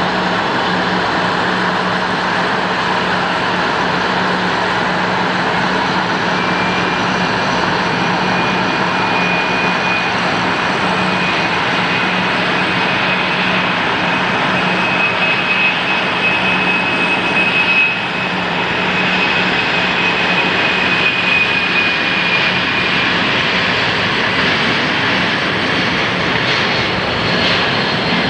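Boeing C-32A (military Boeing 757-200) jet engines at takeoff power during the takeoff roll: a loud, steady jet noise with a low drone. A thin high whine sits over it through the middle of the run.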